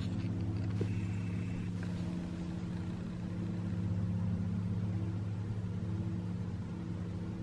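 A steady low mechanical hum, several low tones held evenly, swelling slightly about halfway through, like a motor running.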